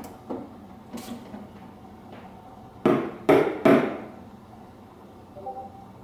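A few light clicks and knocks, then three hard knocks in quick succession about three seconds in: a steamed-milk pitcher tapped on the countertop to settle the foam before pouring.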